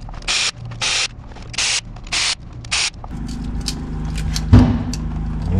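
Ratchet wrench swung in quick back-and-forth strokes, its pawl rasping about twice a second, loosening bolts to drain the transmission fluid. It stops about three seconds in, leaving a steady low hum, with a single loud clank near the end.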